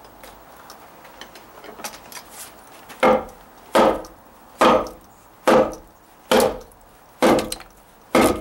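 Hammer striking the lower cut section of a 2x4 wood stud, seven solid knocks about one a second starting some three seconds in, driving the piece loose from the nails that hold it. Lighter taps come before the blows.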